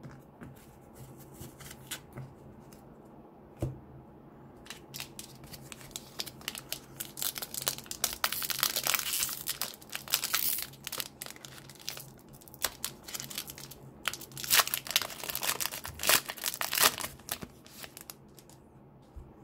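Foil wrapper of a 2020 Select AFL Footy Stars trading-card pack being torn open and crinkled by hand. The crackling starts a few seconds in and comes in spells, loudest about halfway through and again toward the end.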